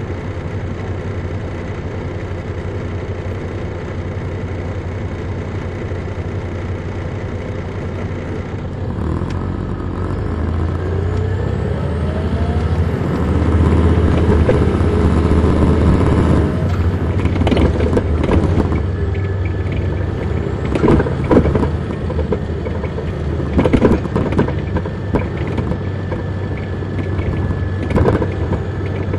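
Detroit Diesel Series 60 diesel engine of an MCI D4000 coach, heard on board from the rear seats: idling steadily, then about nine seconds in pulling away and getting louder, with a rising whine as it accelerates, easing off around sixteen seconds. After that it runs on with a steady high whine and a scatter of sharp knocks and rattles.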